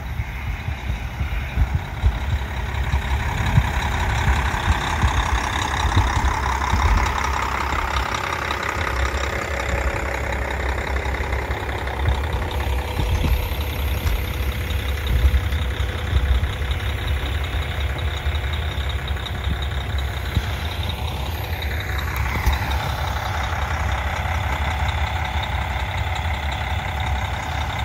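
Single-car KiHa 40 diesel railcar's engine running with a steady low rumble. A tone falls in pitch a little past twenty seconds in.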